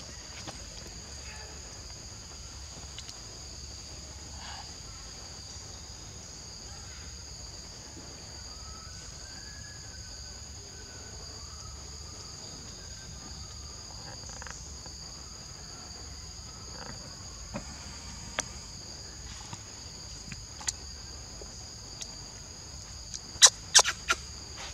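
Steady high-pitched chorus of forest insects, a constant two-toned buzz. A few sharp clicks or taps come in its last third, the loudest cluster shortly before the end.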